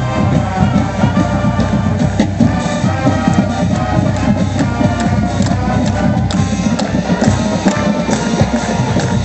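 Marching band playing: held brass chords over a drum line's regular beat.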